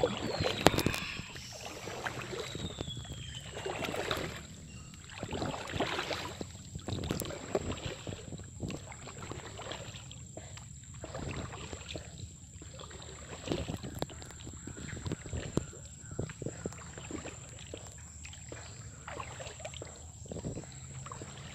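Wooden paddle strokes in river water beside a small foam boat: a splashy pull roughly every one and a half to two seconds.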